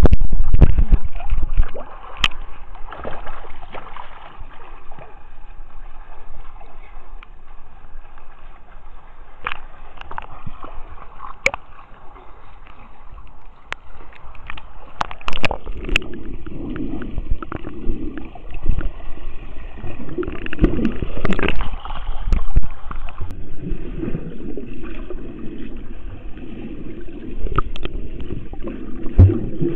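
Pool water sloshing and gurgling against a waterproof camera as it is held at the waterline and under the surface, with occasional sharp knocks.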